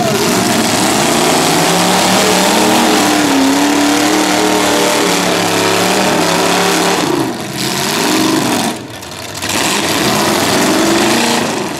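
Several demolition derby cars' engines revving, their pitch rising and falling over a constant loud roar of engine noise, with a brief lull about seven and nine seconds in.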